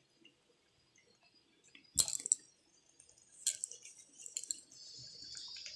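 Chicken cooking in oil in a kadhai: a sharp metal clink of a spatula against the pan about two seconds in and a few lighter clinks, then a steady sizzle from about five seconds in.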